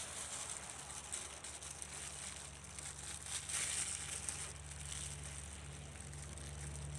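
Soft crinkles and rustles of thin plastic food-prep gloves as the hands handle a peeled banana and split it with a knife, over a faint steady low hum that sets in about a second in.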